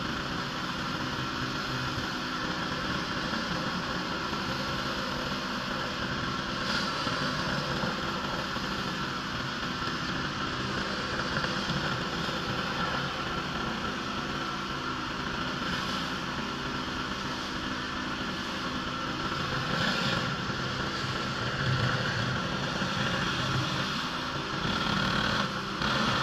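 Pressure washer running steadily: an engine drone under the hiss of the high-pressure water spray, with no break.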